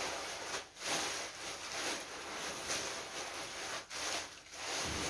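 Plastic bags rustling and crinkling as a clear bag of lava rock is worked out of a plastic courier bag, in stretches with a few short breaks.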